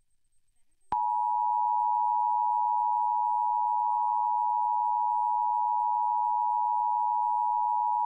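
Emergency Alert System dual-tone attention signal: two steady tones sounded together, starting with a click about a second in and holding without a break. It announces an EAS message, here the national periodic test.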